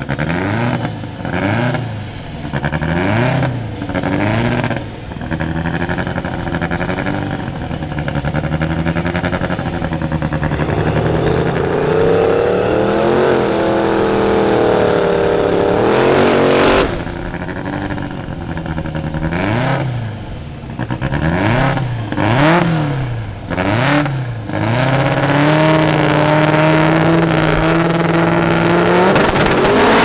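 Drag-racing engines blipped in short rev bursts, then the turbocharged Camaro Z28's V8 held at high, climbing revs for several seconds in a burnout, cutting off suddenly. After more blips, an engine is held at steady high revs near the end, as the cars stage on the line.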